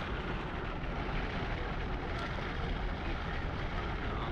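Steady rushing noise, with wind buffeting the microphone as a rumble.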